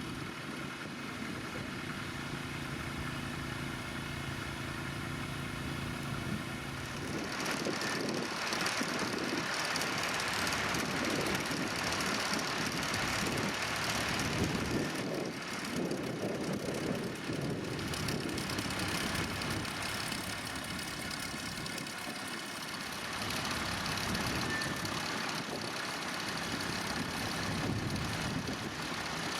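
Vintage tractor engine running at a steady, even pitch; about seven seconds in the sound turns louder and rougher, with more hiss over the engine note.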